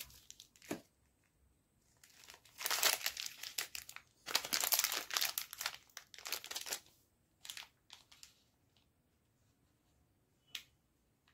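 Plastic chocolate-bar wrappers crinkling as they are handled, in two long bursts a few seconds in, then a few short rustles and a single sharp tick near the end.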